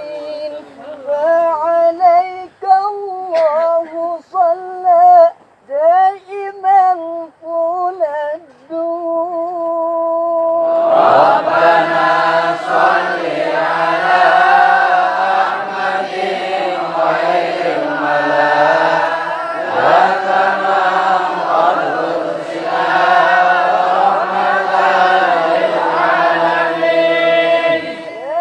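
A boy's solo voice singing a melismatic sholawat line, with pitch bending through ornaments. About eleven seconds in, a group of voices joins and sings on in chorus.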